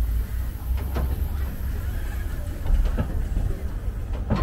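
Railway turntable slowly swinging a C11 steam locomotive and its brake van round: a low, steady rumble with a few dull knocks, over a faint murmur of voices.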